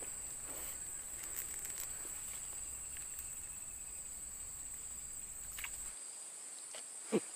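Steady, high-pitched chirring of insects over faint outdoor ambience, with a low rumble that cuts off about six seconds in and a couple of faint clicks near the end.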